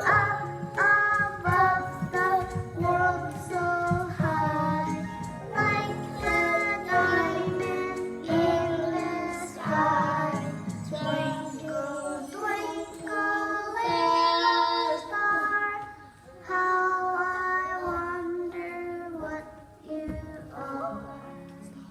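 Children singing a Christmas song together to a backing track, with held, sustained notes.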